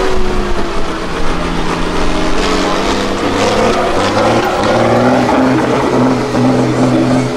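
Diesel engine of a Mercedes-Benz 6x6 trial truck running hard under heavy throttle. Its pitch holds steady for a second or two at a time, with a few sudden shifts.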